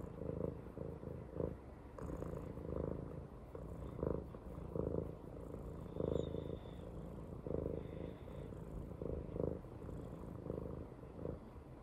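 Brown tabby cat purring close up, the purr swelling and easing with each breath.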